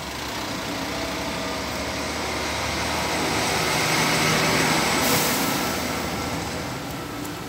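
Engine noise of a passing vehicle, swelling to its loudest about four to five seconds in and then fading.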